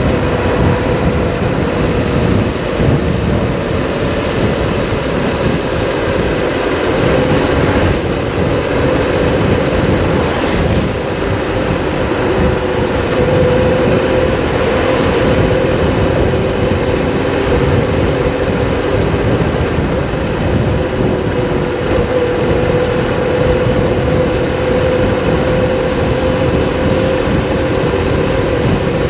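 Triumph Explorer 1200's three-cylinder engine running at a steady cruise, its note dipping and rising a little, under heavy wind rumble on the microphone from riding speed.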